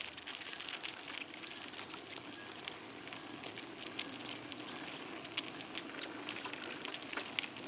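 Bicycle rolling along a trail, its tyres giving a steady low rumble with scattered small clicks and crackles.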